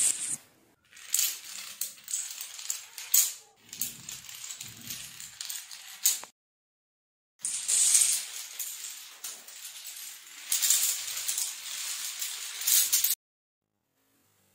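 Rows of small dominoes toppling in a chain, a dense clicking clatter. It stops dead about six seconds in, starts again a second later, and stops dead again near the end.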